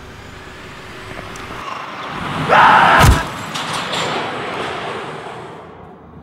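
A car driving in fast, its noise swelling louder, then a loud crash about three seconds in. After the crash the car's noise dies away.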